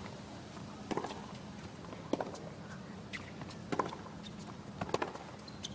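Hushed indoor tennis arena between points: a low, steady crowd hum with a few faint, sharp taps about a second apart.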